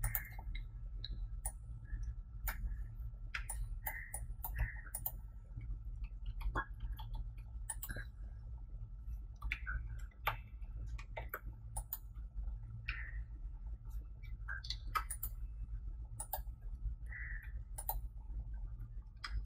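Irregular clicks of a computer mouse, roughly one a second at uneven spacing, over a steady low hum.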